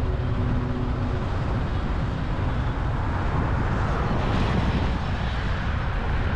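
Steady rumbling road noise of a vehicle on the move, with a few faint held tones that die away about a second in.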